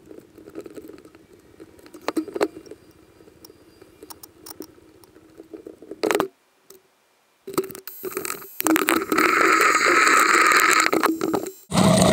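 Scattered light clicks and rattles. Then, after a short silent break, a loud, steady rushing and rattling from about eight seconds in: a rubber-band-powered racer's wheels rolling over concrete, picked up by a camera mounted on the car.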